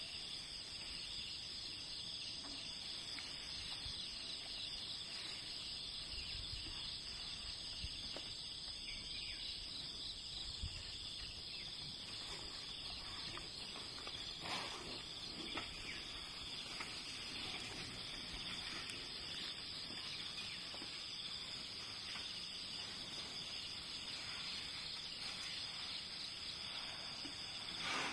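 Insects droning steadily at a high pitch, with a few faint, short calls or knocks now and then.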